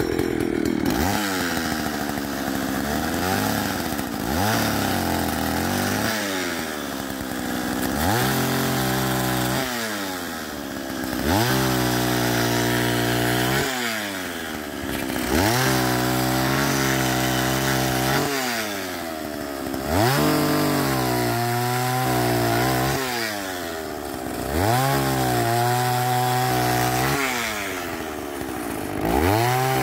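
Old Jonsered 80 two-stroke chainsaw revved over and over. Each time the engine note climbs to full throttle, holds for a second or two, and drops back to idle, roughly every two to four seconds.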